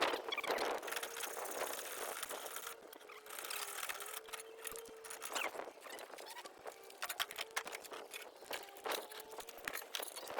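Hacksaw sawing metal in uneven back-and-forth strokes, with a faint steady ringing tone under the rasp of the blade.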